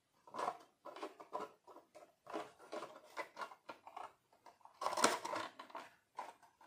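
Hands handling and turning over a 1/18 scale RC crawler with a hard plastic body: irregular plastic clicks, rubs and taps, with a louder clatter about five seconds in.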